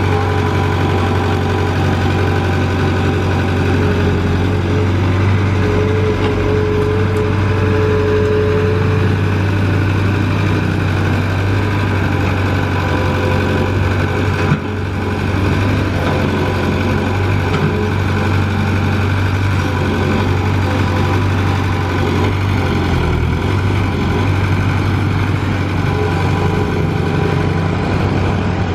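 Komatsu PC75UU mini excavator's diesel engine running steadily while it digs, a deep low hum with higher whining tones that come and go. The sound drops briefly about halfway through, then carries on.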